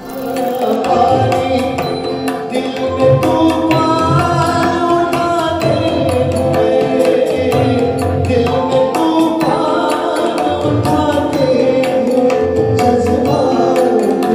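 A live Hindi film song: a male vocalist singing over a band with tabla accompaniment.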